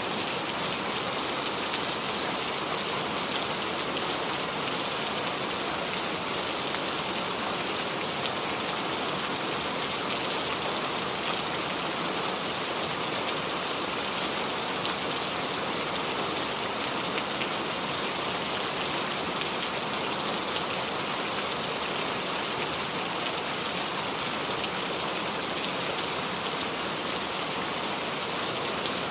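Rain falling steadily on a roof: an even hiss dotted with fine drop ticks, unchanging throughout.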